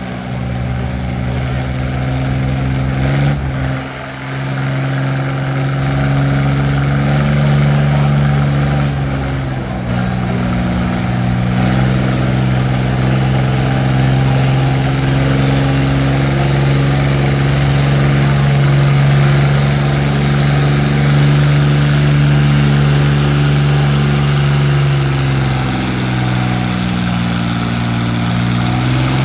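A John Deere farm-stock pulling tractor's engine running under full load as it drags a weight-transfer sled. It dips briefly about four seconds in, then holds a steady drone.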